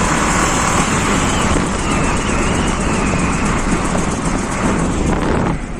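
Car driving along with loud, steady road and tyre noise and a noise from one wheel, the kind that shows while accelerating and at speed. That wheel has play in it, which is put down to a bad bearing or a broken part. The sound drops off sharply shortly before the end.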